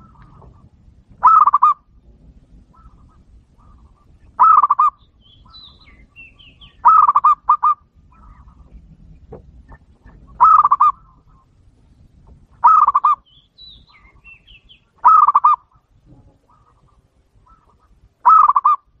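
Zebra dove (perkutut) cooing: about eight short bursts of rapid, rolling notes every two to three seconds, two of them close together near the middle.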